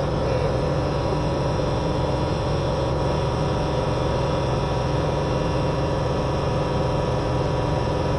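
A motor running steadily at constant speed, an even droning hum with no change in pitch.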